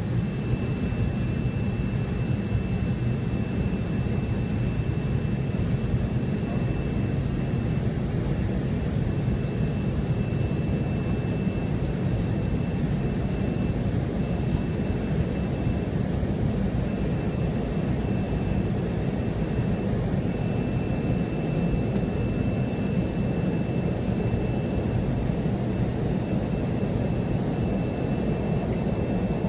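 Steady jet cabin roar inside a McDonnell Douglas MD-88 climbing after takeoff, its rear-mounted Pratt & Whitney JT8D turbofans giving a deep, even rumble. A thin high whine sits above it, coming and going.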